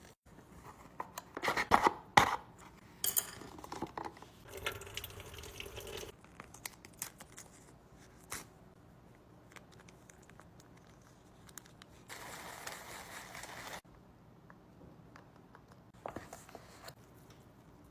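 Close-up eating and food-handling sounds: crinkling and rustling with small clicks and clinks, loudest about two seconds in, then a steadier rustling stretch about two-thirds of the way through.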